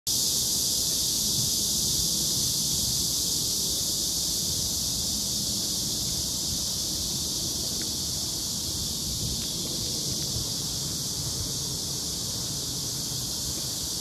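Dense, unbroken cicada chorus: a steady high-pitched hiss, with a low rumble of wind and handling on the phone's microphone underneath.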